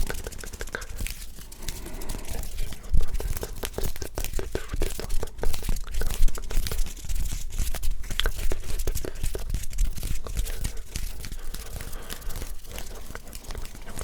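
Hands rubbing and fluttering close to a microphone for ASMR, a fast, dense crackling rustle with sharper pops.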